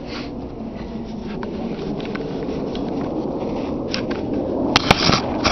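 Handling noise: rustling with scattered light knocks, growing slowly louder. Near the end come a few sharp knocks and a short rasping burst.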